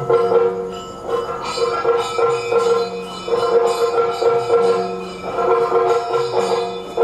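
Yakshagana music: a steady drone with jingling metal percussion keeping a pulsing beat.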